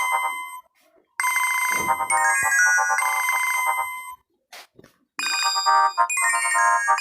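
Simple electronic phone ringtone melody of short, bright pitched notes, playing in phrases separated by brief pauses; a higher-pitched phrase begins about five seconds in.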